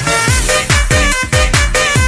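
Electronic breakbeat dance music: a fast, steady kick drum with pitch-dropping bass hits about four times a second under synth lines.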